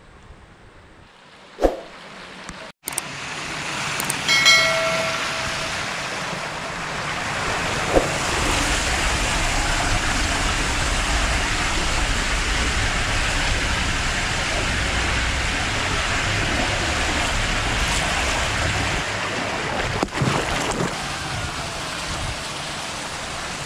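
Rushing water and the rider sliding down an enclosed tube water slide, a steady rushing noise with a low rumble, broken by a short high tone about four seconds in; near the end the rider drops into the pool with a splash and churning water.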